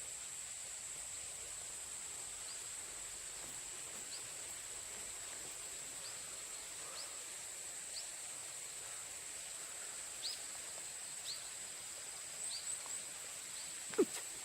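Countryside ambience: a steady high-pitched insect drone, with a bird giving short chirps about once a second from a couple of seconds in. There is one sharp click near the end.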